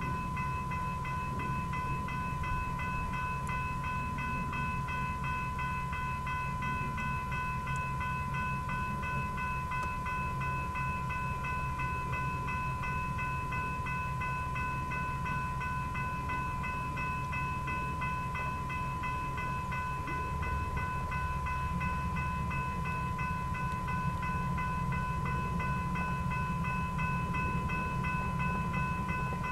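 Railroad grade-crossing warning bell ringing in a steady, fast rhythm while the signals flash, over the low rumble of a stopped freight train; the rumble grows a little louder about two-thirds of the way through.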